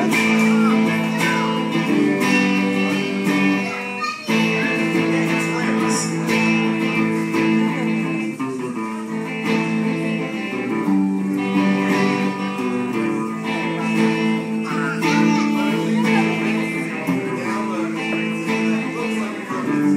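A solo guitar plays an instrumental passage of a song, with chords ringing and changing every second or two.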